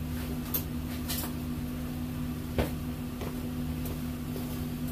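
A steady low hum, like an electrical machine running, with a few light knocks about half a second, one second and two and a half seconds in.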